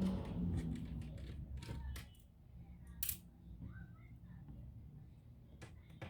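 A few sharp clicks and small taps, one loud click about halfway, over a low steady hum that fades in the first couple of seconds.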